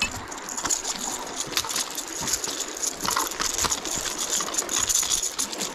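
A hooked white bass being landed on a rattling lipless crankbait: quick, irregular clicks and rattles from the thrashing fish, the lure and the baitcasting reel, over a steady hiss.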